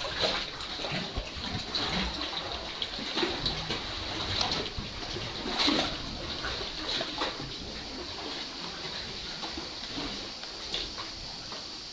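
Sea water sloshing and splashing around kayaks inside a sea cave, with irregular splashes from paddle strokes and water slapping the hulls and rock; the loudest splashes come about a third and a half of the way through.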